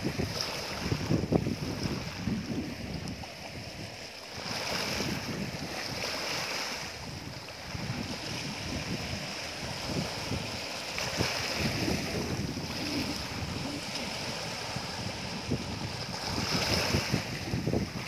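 Small sea waves breaking and washing over a shallow rocky, weed-covered shore. The wash swells every five or six seconds, with wind buffeting the microphone throughout.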